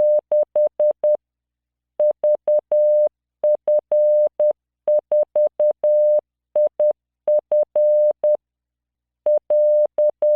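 Computer-generated Morse code: a 600 Hz sine-like tone keyed in dots and dashes at 10 words per minute. It sends the end of one group, then after a pause the random five-character group VF4IF, and the next group begins near the end.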